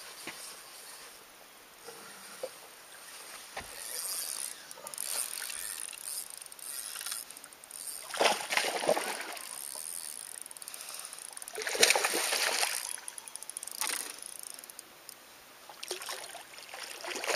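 Water splashing and sloshing at a bass boat's bow, with louder splashes about eight and twelve seconds in.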